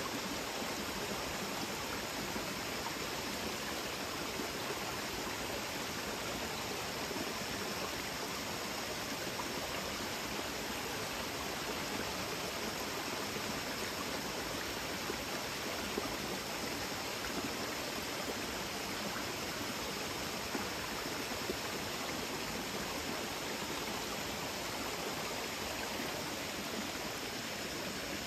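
Creek water running with a steady, even rush.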